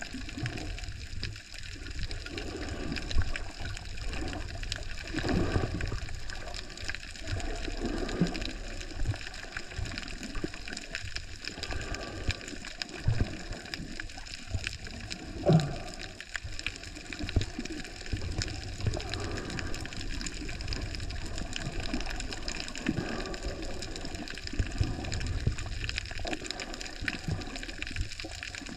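Underwater ambience heard through a camera's waterproof housing: a steady muffled rush of water with scattered low thuds, the clearest about 3 seconds in and about 15 seconds in.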